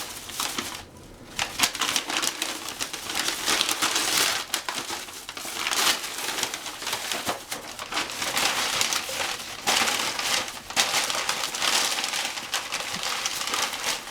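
Paper and packaging being torn and crumpled by hand, an irregular run of crinkling and ripping as a child opens a gift box.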